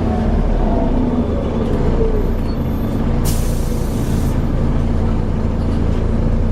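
Volvo B7TL bus running, with a steady low engine hum and a drivetrain whine that falls in pitch over the first couple of seconds as it slows. About three seconds in, a burst of compressed-air hiss from the air brakes lasts about a second.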